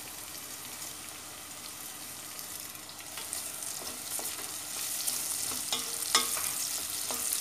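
Sliced sausages and chopped peppers sizzling in hot oil in a stainless steel pot. From about three seconds in, a wooden spoon stirs them, adding scrapes and knocks against the pot, and the sizzling grows louder.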